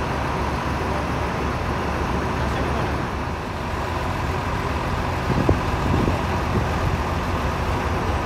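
Steady low engine rumble of coach buses and street traffic, with a faint steady hum running above it. A brief knock about five and a half seconds in.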